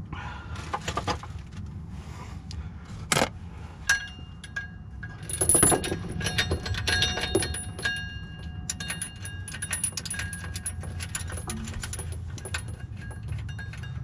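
Steel chain clinking and rattling as it is handled and unhooked from the flywheel, where it held the flywheel still while the pressure plate bolts were torqued: many sharp metallic clinks with a ringing tail, the loudest rattle about five and a half seconds in, over a steady low hum.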